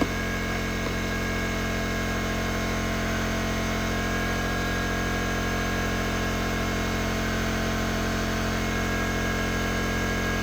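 Steady electrical hum, unchanging, with a faint click at the very start.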